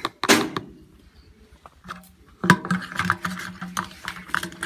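Diesel poured from a plastic cup into a tractor's fuel tank, a short splashing rush just after the start. From about two and a half seconds in, a steady low hum with clicks and knocks over it.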